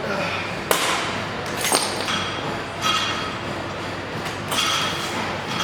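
Sharp metallic clanks of gym weights, two about a second apart near the start, over a steady noisy background with short ringing metal tones.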